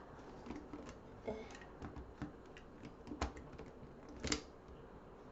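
Irregular plastic clicks and clacks of a 3x3 Rubik's cube being turned and its corners twisted by hand, with two louder clacks about three and four seconds in.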